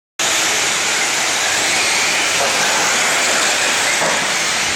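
Radio-controlled 4x4 short-course trucks racing on an indoor dirt track, heard as a loud, steady hiss of motors and tyres on dirt.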